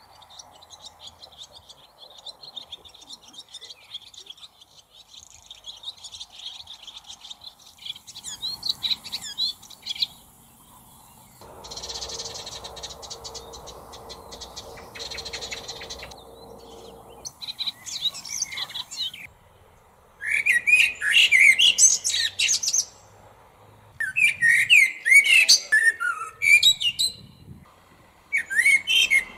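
Bird chirping in quick runs of short high calls, faint at first and then in loud bursts through the second half. A steady hum sounds for a few seconds near the middle.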